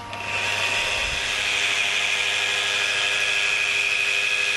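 Power drill with a paddle mixer running steadily, stirring two-component epoxy resin in a metal pail. It starts just after the beginning and holds an even whine.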